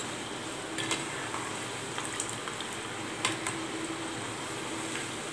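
Masala peanuts in a gram-flour batter sizzling steadily as they deep-fry in hot oil in a kadai, with a few light clicks as a slotted spoon stirs them.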